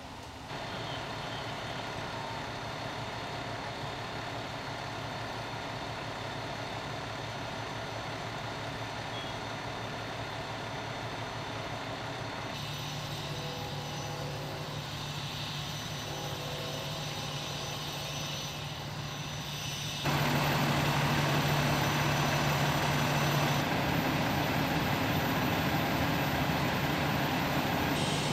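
Engines running with a steady drone and a held hum. The sound changes abruptly about twelve and twenty seconds in, and is louder after the second change.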